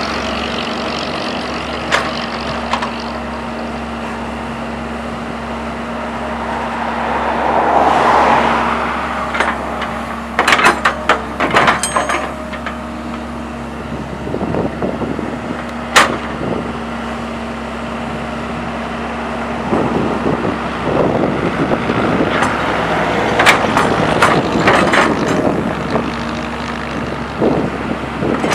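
Sumitomo hydraulic excavator's diesel engine running steadily under load as the bucket digs a ditch, with sharp knocks and clanks from the bucket and arm, bunched around ten to twelve seconds in and again near the end. A passing road vehicle swells and fades about eight seconds in.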